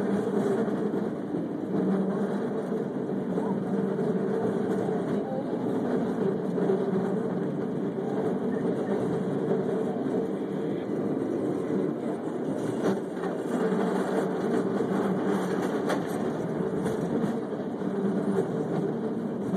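San Francisco cable car running along its track: a steady rumbling ride noise with a constant low hum, typical of the moving cable in the slot under the street. A few rattling clicks come about two-thirds of the way through.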